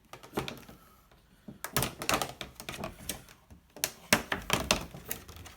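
Irregular clicks and knocks of small parts being handled: the two mounting bolts being fitted to the cardboard packaging template, in two clusters with pauses between.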